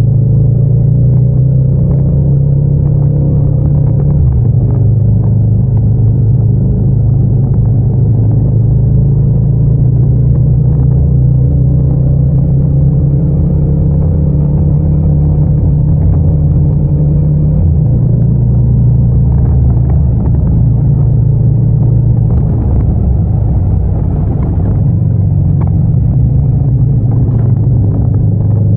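Yamaha MT-07's 689 cc parallel-twin engine and exhaust running steadily under way, a deep continuous drone whose pitch drifts slightly up and down.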